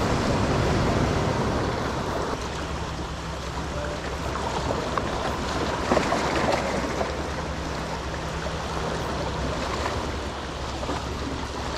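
Small sea waves washing and splashing against the stone blocks of a jetty, with wind noise on the microphone.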